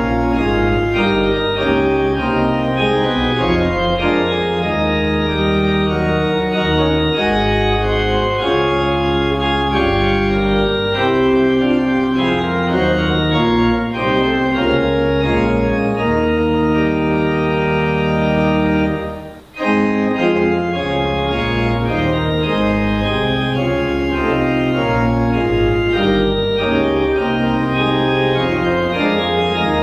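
Organ playing a hymn tune in steady held chords, with a brief break about two-thirds of the way through.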